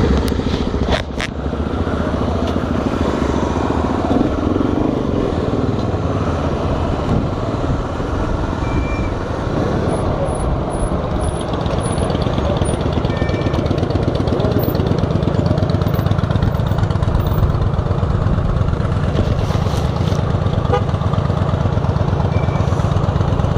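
Honda XR 250 Tornado's single-cylinder four-stroke engine idling steadily, with a couple of clicks about a second in.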